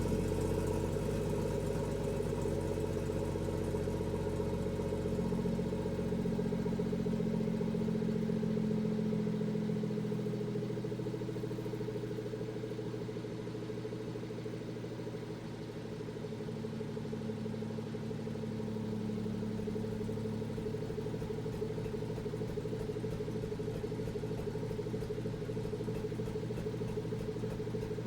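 BMW B58 3.0-litre turbocharged inline-six in an M240i idling through a catless VRSF downpipe, its hum wavering slightly and dipping in level around the middle: the rough idle that the owner has had since fitting the downpipe, cause unknown.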